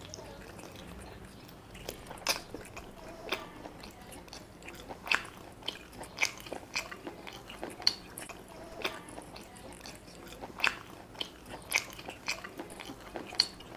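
Close-miked chewing of chicken and biryani rice, with sharp mouth smacks and clicks about once a second.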